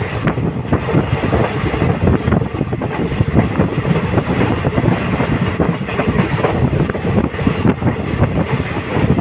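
Train running at speed, heard from inside a coach: a steady rumble with dense, irregular clatter of wheels on the rails.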